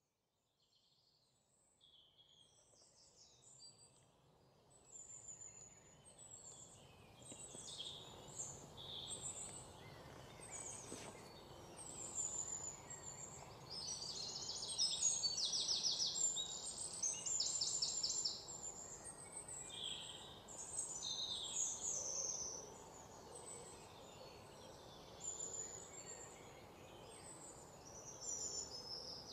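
Many small birds chirping and trilling over a steady background hiss, fading in over the first several seconds.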